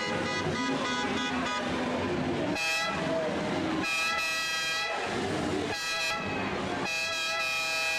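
A horn sounding a series of long toots, each held about a second with short gaps between, starting a couple of seconds in, over a general street clamour.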